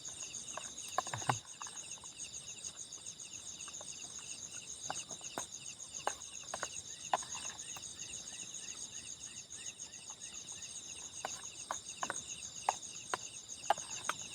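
Night chorus of crickets and other insects, a steady rapid pulsing trill in several high layers. Scattered small clicks and taps fall through it, and a faint quick run of short rising chirps comes in around the middle.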